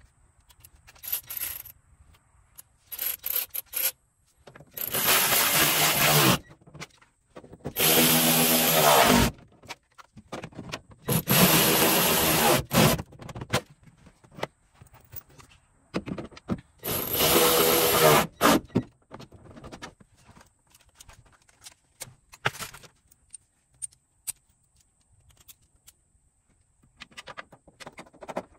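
A handheld power tool run in four bursts of about a second and a half each, with small clicks and knocks between them.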